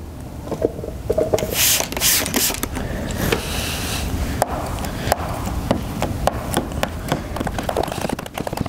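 A hand trigger spray bottle spritzing twice about two seconds in. Then a plastic squeegee works over wet tint film, with scattered short sharp clicks.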